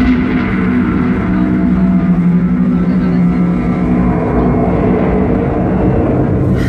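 Show soundtrack playing over outdoor loudspeakers: ambient drone music with long held low notes over a steady low rumble.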